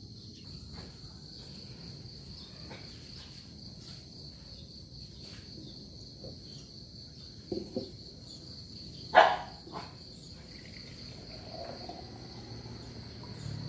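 Insects chirring steadily at a high pitch throughout, with a few knocks of kitchenware on a wooden table and one sharp clink, the loudest sound, about nine seconds in. Near the end, lemongrass water is poured from a small pot into a glass jar, a faint tone rising as the jar fills.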